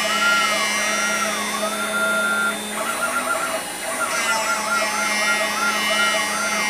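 6040 desktop CNC router milling a circle in ABS plastic with a single-flute end mill. The stepper motors whine, rising and falling in pitch about two to three times a second as the axes trace the circle, over a steady spindle hum. The cycle quickens briefly about three seconds in and pauses just before four seconds, then resumes.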